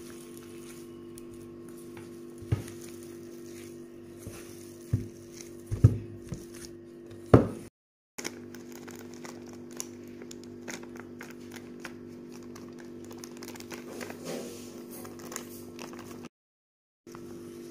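Hands mashing and kneading boiled raw banana in a steel plate: soft squelches and a few sharp knocks against the metal plate over a steady low hum. The sound cuts out briefly twice.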